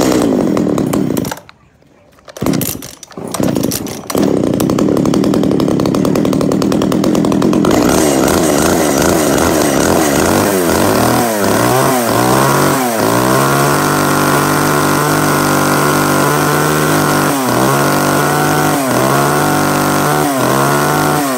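Komatsu G300 small two-stroke engine being pull-started: it cuts out briefly about two seconds in, catches again and runs, then is revved up and down repeatedly, held at high speed for a few seconds with short throttle drops near the end.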